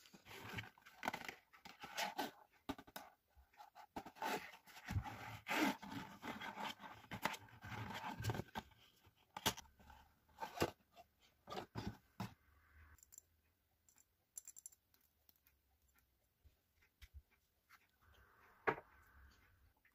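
Cardboard carton and a paper leaflet being handled: quick rustling, crinkling and scraping that grows quieter about two-thirds of the way through. Near the end a single sharp click as the plastic cap is twisted off the glass bottle.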